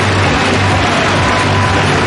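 Loud arena sound between rallies: a big crowd cheering, with music and a pulsing low beat.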